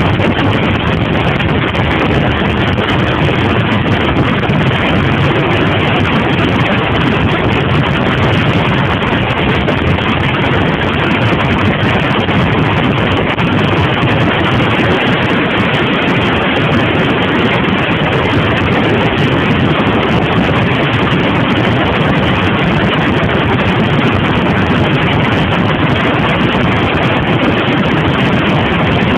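Steady wind rush over a motorcycle-mounted microphone at road speed, with a 2002 Suzuki TL1000R's V-twin engine running underneath. The sound is even, with no gear changes or revving standing out.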